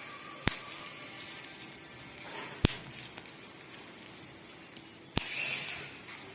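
Bubble wrap bubbles popping one at a time: three sharp pops, about two and a half seconds apart.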